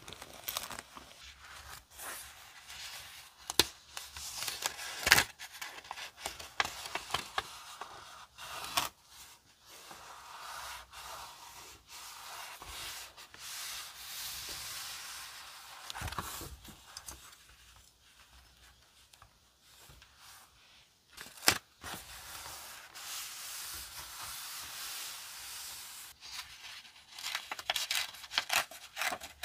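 Sheets of decorative scrapbook paper handled by hand on a journal page: rubbed and smoothed flat, slid and rustled. Several sharp crinkles or taps stand out, and the rustling is busier near the end.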